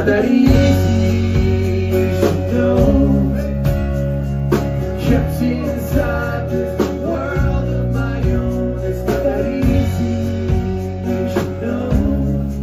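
A live rock band plays: a man sings over a strummed acoustic guitar and a drum kit, with strong steady bass notes underneath.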